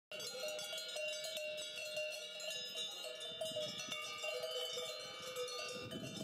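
Several cowbells clanging irregularly, their tones overlapping at slightly different pitches, as from a herd grazing on an alpine pasture.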